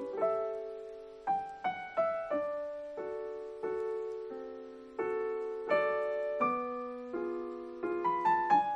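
Gentle background piano music: notes and chords struck every second or so, each ringing and fading away, with a quick run of higher notes near the end.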